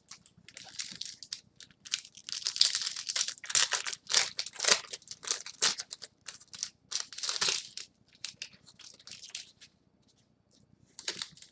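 Trading card pack wrappers being torn open and crinkled, in irregular rustling bursts for about eight seconds, then quieter with a few more crinkles near the end.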